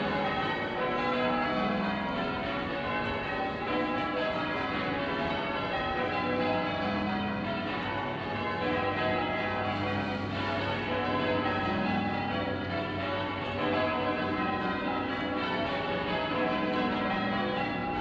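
The church bells of St Peter Mancroft, a ring of twelve, being rung full-circle in change ringing, heard from the street outside the tower. The bells strike one after another in a steady, continuous stream of overlapping tones.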